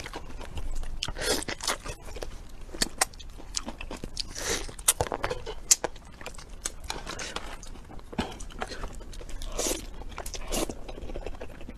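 A person eating: irregular crunching and biting, with chewing, in quick uneven bursts.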